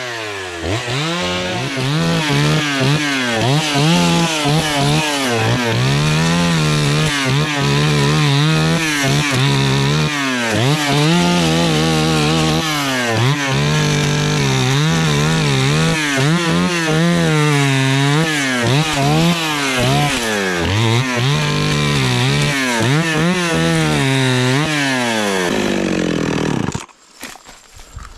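Two-stroke chainsaw revving up and falling back to idle over and over as it cuts the branches off a felled spruce trunk. Near the end the engine winds down and stops.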